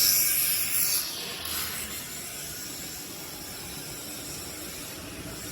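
Factory-floor background noise: a loud hiss for about the first second, with a couple of faint high squeaks, then a steady low hiss.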